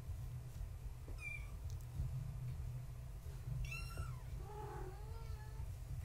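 Young kittens mewing: a short high mew about a second in, then near the middle a longer call that slides down in pitch and wavers.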